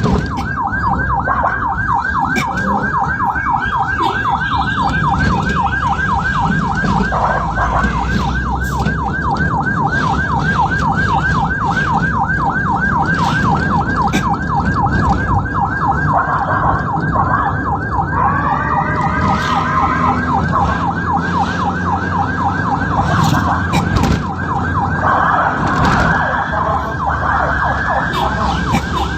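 Ambulance siren sounding in a fast yelp, a rapid unbroken run of rising and falling sweeps several times a second, over engine and road noise. About two-thirds of the way through, and again near the end, another gliding pitched sound briefly joins it.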